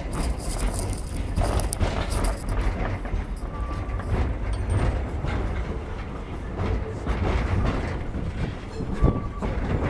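Open-sided carriage of a vintage train rolling slowly along the track: a steady rumble from the wheels and running gear, with clanks and clicks from the wagon and rail joints.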